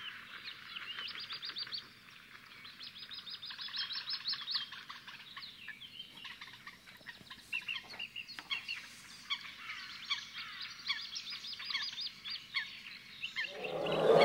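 Several birds chirping and calling, with quick runs of high repeated notes about a second in and again around four seconds in, and scattered chirps after that.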